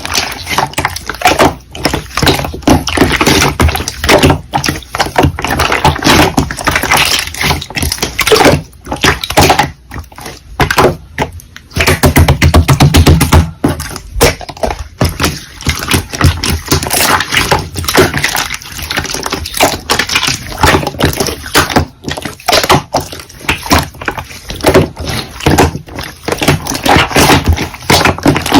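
Slime being squished and pressed by hand, making dense, irregular clicks and pops, with a brief heavier, lower squelch near the middle.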